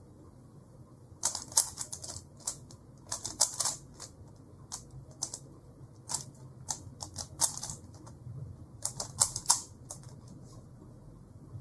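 Plastic Rubik's Cube layers being turned by hand: quick runs of clicking turns in several bursts, with short pauses between them.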